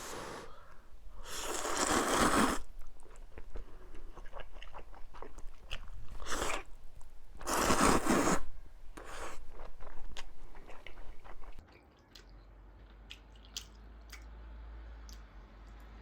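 Close-miked eating of mala ramyun: two long slurps of noodles, each about a second, with chewing and small mouth clicks between them and after. It grows quieter near the end.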